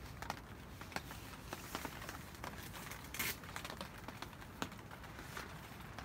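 Faint, irregular clicks and crackles over a low background hiss, with a short rustle about three seconds in.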